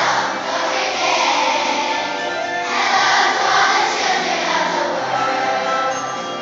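Children's choir singing together, a large group of young voices holding sung notes.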